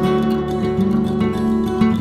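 Background music on acoustic guitar, a steady run of plucked notes.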